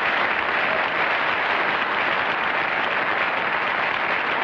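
Studio audience applauding: a steady wash of many hands clapping.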